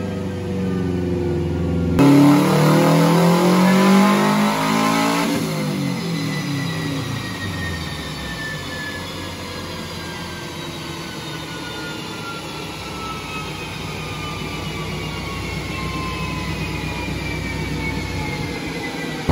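2002 Subaru WRX's turbocharged flat-four under load on a chassis dyno. Revs climb hard for about three seconds, then the throttle closes. The engine, drivetrain and dyno roller wind down with a long whine that falls slowly in pitch.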